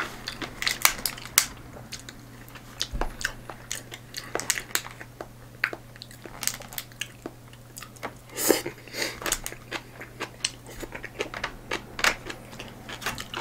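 A person chewing food close to the microphone, with irregular clicks of chopsticks against a plastic takeout container.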